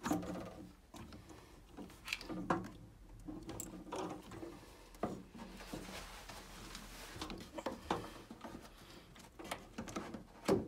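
Plastic condensate trap of a Baxi 600 combi boiler being unclipped and worked loose by hand: scattered clicks, knocks and rustles of plastic pipe and fittings, with a longer rubbing rustle just past the middle.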